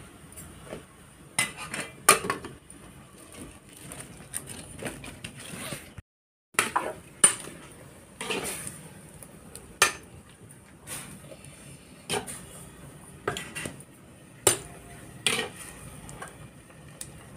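Metal spoon clinking, knocking and scraping against metal cookware as spinach is stirred in the pan, in irregular strokes. The sound cuts out completely for a moment about six seconds in.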